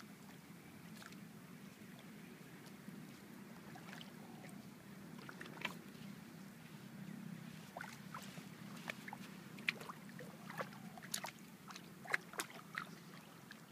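Shallow seawater sloshing and lapping, with scattered small splashes and clicks that come more often in the second half.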